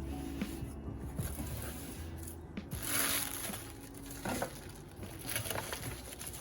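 Rustling and crinkling of packaging being handled, with a few light taps, over faint background music.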